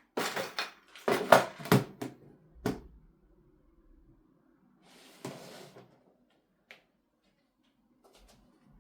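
Hard objects handled and set down: a run of irregular knocks and clatters over the first three seconds, then a short scraping rustle about five seconds in and a single click near the end.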